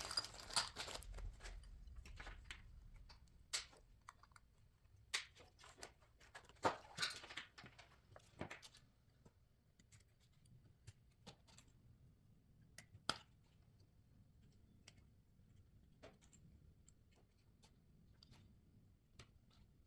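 Faint, scattered small clicks and taps of blade fuses and flashers being pressed into a plastic automotive fuse block. They are most frequent in the first half.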